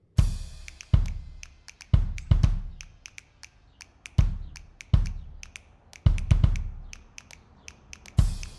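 Score music with a drum beat: heavy kick-drum hits about once a second, some in quick doubles, over lighter ticking strikes.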